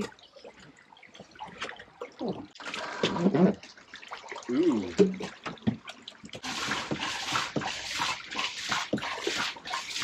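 Fuel being transferred with a hand siphon pump into a portable outboard fuel tank: scattered handling knocks at first, then from about six seconds in a steady gushing, splashing rush of liquid.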